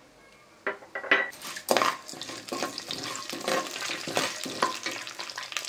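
Chana dal, urad dal, cumin and mustard seeds sizzling in hot ghee and oil in a metal pan as they are stirred. A few clinks and scrapes on the pan come in less than a second in, and a steady crackling sizzle follows.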